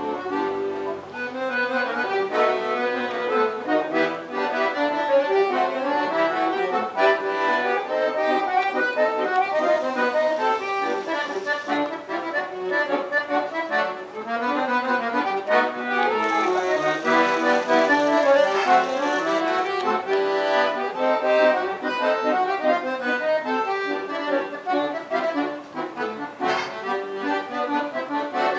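Accordion music in a traditional style, a continuous stream of quickly changing notes.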